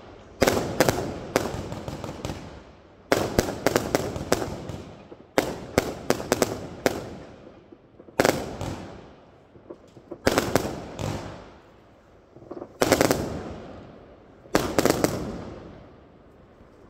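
Riakeo Weapon X 77-shot consumer firework cake with 25 and 30 mm tubes firing. It goes off in seven volleys of several quick bangs, two to three seconds apart, and each volley fades away over a second or two.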